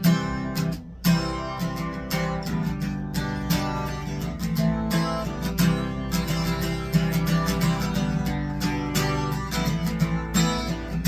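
Acoustic guitar strummed in a steady rhythm through an instrumental break of a blues song, with a short dip about a second in before the strumming picks up again.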